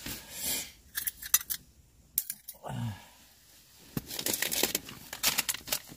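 Light clicks, rattles and rustles of fishing gear being handled: a small metal groundbait feeder knocking about as it is readied to go down the ice hole, in two spells, about a second in and again from about four seconds in.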